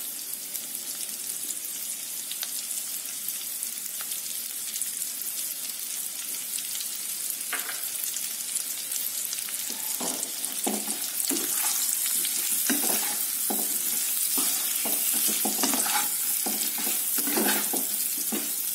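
Boiled potato pieces sizzling steadily in hot oil in a kadhai. In the second half a wooden spatula stirs them, with repeated scrapes and knocks against the pan, and the sizzle grows a little louder.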